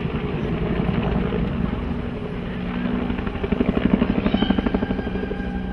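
Two-bladed Bell military helicopter rotor chopping overhead, a rhythmic thudding of about ten beats a second over the engine's steady run. It swells loudest about halfway through as an aircraft makes a pass, then eases.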